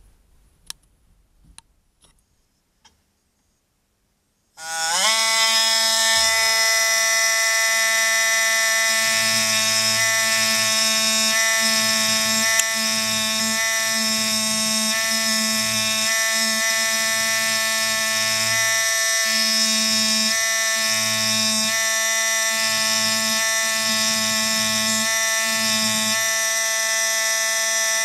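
A few faint clicks, then about four and a half seconds in a pneumatic air pen (air scribe) starts with a quick rise in pitch and runs on as a steady high-pitched buzz while its tip chips rock from an ammonite nodule, with an uneven low pulsing underneath.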